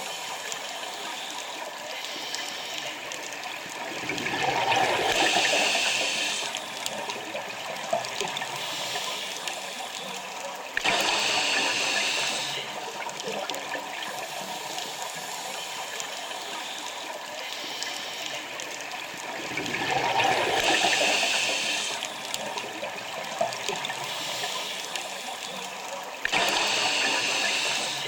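A scuba diver breathing through a regulator underwater: a steady hiss broken by four loud surges of rushing bubbles several seconds apart. Two of the surges swell up and two start suddenly, following the diver's breaths.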